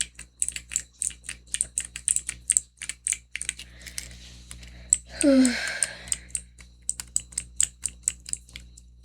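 Fidget toy being clicked rapidly and repeatedly, a keyboard-like clatter of sharp clicks several times a second. About five seconds in, a brief breathy sound with a falling pitch interrupts the clicking.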